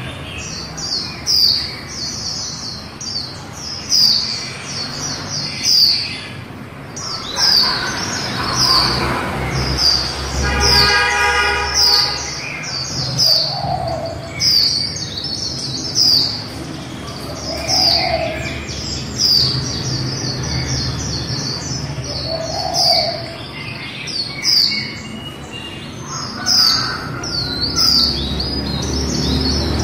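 Female white-eye (vành khuyên) twittering: a rapid, continuous string of short, high, down-slurred chirps, about two a second. This is the 'líu' twitter that keepers play to stir caged white-eyes into singing. A lower call sounds every few seconds, and a brief buzzy tone comes in about ten seconds in.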